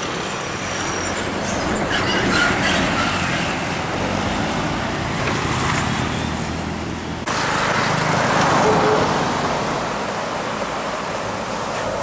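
Coach buses passing close by on a road: engines running and tyre noise, with an abrupt change to another stretch of passing traffic about seven seconds in.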